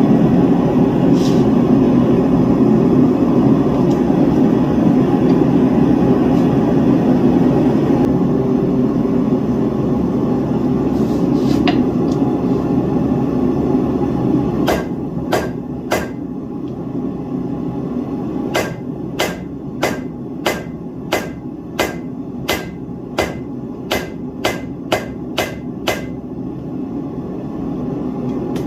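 A steady low rushing noise, then about halfway through a blacksmith's hammer striking steel on an anvil: three blows, a short pause, then a long regular run of about two blows a second, each with a short ring.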